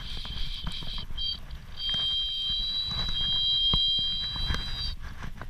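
Fly reel's click-and-pawl ratchet buzzing at a high, steady pitch as the spool spins while a hooked salmon is played: one burst that stops about a second in, a short blip, then a run of about three seconds that cuts off near the end. Low wind rumble and handling knocks underneath.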